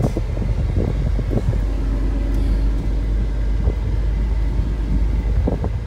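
Car cabin noise while driving: a steady low rumble of engine and road noise inside the moving car.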